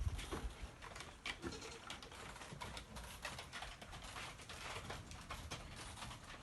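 Goats' hooves clicking and tapping irregularly on a plastic slatted floor.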